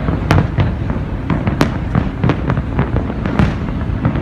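Fireworks going off in quick succession: many sharp bangs and cracks, several a second, over a continuous rumble of distant bursts.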